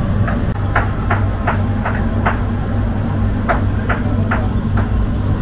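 Flat steel kebab skewers clinking against the metal rim of a charcoal grill as they are turned, about ten sharp clinks in two runs, over a steady low machine hum.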